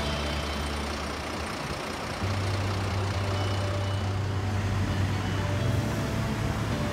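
Road traffic: cars and larger vehicles driving past, with a heavy vehicle's low engine drone that comes in about two seconds in and fades near six seconds.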